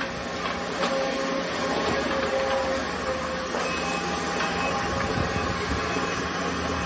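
Sumitomo SH210 hydraulic excavator working at a distance: steady engine and hydraulic noise under a constant hiss, with a few faint clanks in the first couple of seconds.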